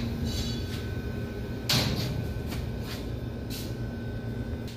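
Several short knocks and clunks, the loudest about two seconds in, over a steady low hum.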